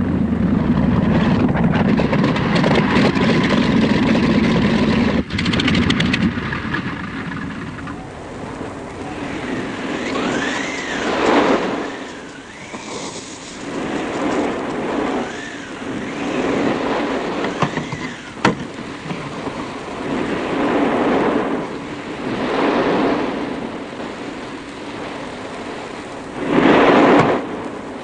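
Light aircraft's propeller engine running with a steady drone. About six seconds in the drone drops away, and swells of rushing, whistling noise rise and fall.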